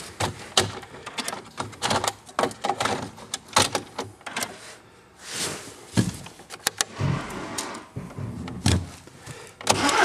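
Irregular clicks and knocks of handling at the car, such as a door being worked. Right at the end the VW Passat's 2.0 TDI diesel engine starts up.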